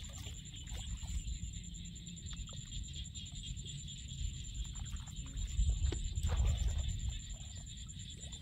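Hands digging and scooping in wet mud and shallow water: small splashes, squelches and knocks, with a louder stretch of low sloshing a bit over halfway through. A steady, finely pulsing high-pitched chirring drone carries on behind.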